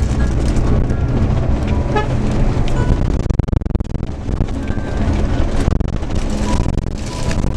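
Vehicle engine and road noise, with background music laid over it.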